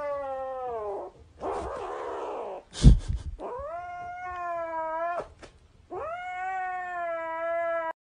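Grey kitten giving long, drawn-out yowling meows, three in a row, with a breathy, hissing call between the first two, while guarding a plush toy from a reaching hand. A sharp thump about three seconds in is the loudest sound.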